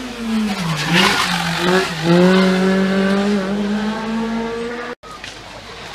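A race car's engine at full noise as the car passes close by. Its note falls, jumps up about a second in and again about two seconds in, then holds high and climbs slowly. It cuts off abruptly near the end, and a quieter engine follows.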